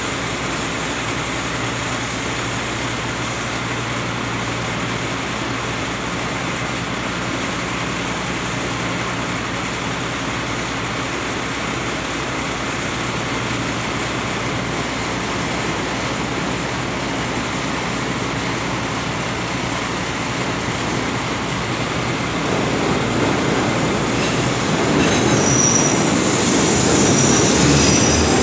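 Chicago 'L' elevated train running on the steel structure overhead, a steady rumble that grows louder near the end as a train comes close, with high wheel squeal on the rails.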